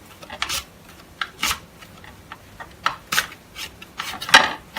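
Raw potato pushed across the slicing blade of a hand grater, cutting thin chips in short, irregular rasping strokes, the loudest one near the end.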